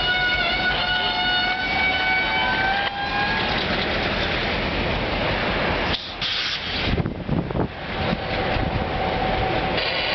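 EMD GP10 diesel locomotive's horn sounding a steady chord that stops about three seconds in, followed by the locomotive running, with a few sharp knocks around seven seconds in.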